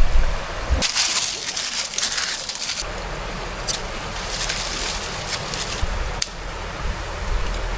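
Forest stream water running, with a brighter hissing stretch of about two seconds starting about a second in and two sharp clicks later on.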